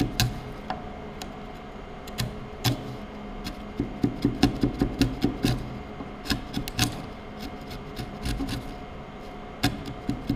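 A wide chisel pushed by hand, paring across the bottom of a trench in timber to level it: a run of short scraping cuts and clicks, densest about four to five and a half seconds in.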